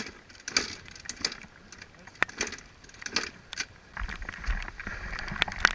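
A series of irregular sharp clicks and knocks, roughly one or two a second, with a low rumble joining about four seconds in; no engine is running.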